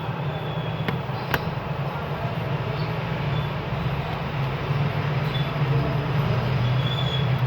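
Steady low hum over a constant background noise, with a sharp click or two about a second in.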